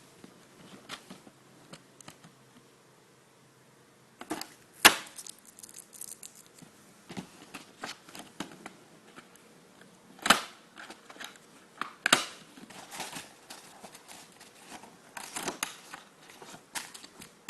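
Tape being peeled and torn off a cardboard CD album box, with scattered crackling and several sharp rips or snaps; the loudest come about five seconds in and again around ten and twelve seconds in.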